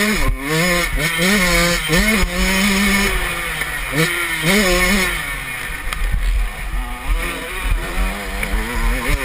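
Motocross bike's engine revving hard and easing off over and over as it is ridden round a dirt track. Its pitch climbs in short runs of about half a second to a second and drops back with each throttle change or gearshift, dipping lower about two thirds of the way through. A steady rushing noise runs under it.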